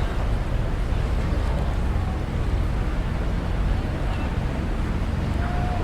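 City ambience: a steady, low rumble of traffic.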